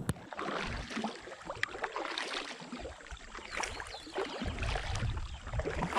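Kayak paddle strokes: the blade dipping and pulling through calm water with irregular splashing and dripping, and an occasional light click or knock. A brief low rumble comes in about four and a half seconds in.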